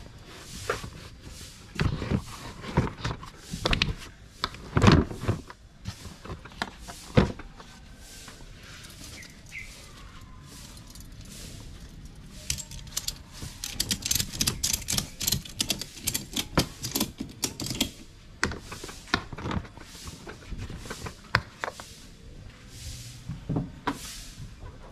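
Plastic storage boxes and a cooler knocking as they are shoved into place in an SUV's cargo area, then a ratchet tie-down strap being cranked tight: a fast run of clicks lasting several seconds, about halfway through.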